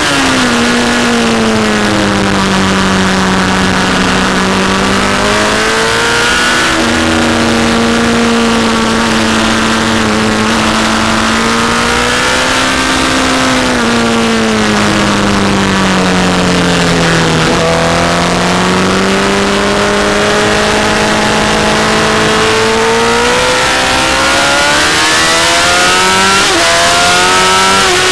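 Honda CBR1000 sportbike's inline-four engine at racing speed, heard from on board: its pitch drops as the rider shuts off and brakes, then climbs again on the throttle out of the corners, several times over. A steady rush of wind over the microphone runs beneath it.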